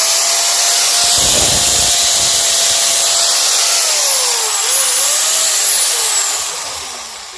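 Keyang ACT-100SN disc grinder running with a loud, high whine after repair. Its pitch dips and recovers a few times, then it slows and winds down near the end as the motor coasts to a stop.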